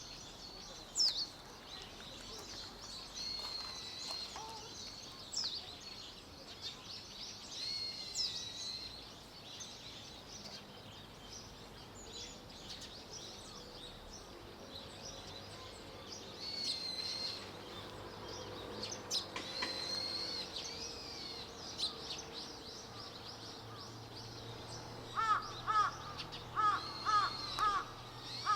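Small birds calling with high, thin chirps and whistles scattered throughout. About 25 seconds in, a crow starts cawing in a quick, evenly spaced series of caws.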